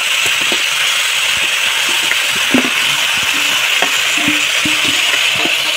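Flat bean pieces sizzling as they fry in hot mustard oil and masala in a kadhai, a steady hiss. A spatula knocks and scrapes against the pan now and then as they are stirred.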